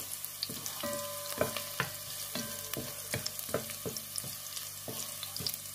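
Chopped garlic sizzling in a little hot oil as it is browned. A wooden spatula stirs it and knocks against the pot about three times a second.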